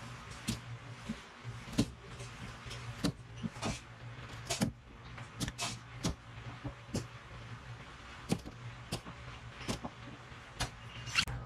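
Kitchen knife chopping a burdock root into short lengths on a cutting board: a string of sharp, irregular knocks as the blade goes through the root and strikes the board, about one every half second to a second.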